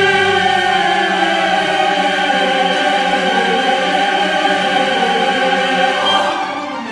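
Background music with a choir holding a long chord; the chord changes about six seconds in.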